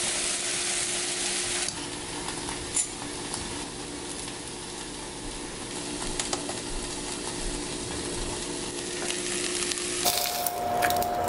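Diced peppers and onion sizzling in a small saucepan, with a few light clicks.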